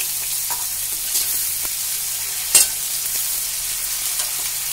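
Chopped onions sizzling in hot oil and cumin in a metal kadhai, stirred with a slotted metal spatula; a steady high sizzle, with one sharp click about two and a half seconds in.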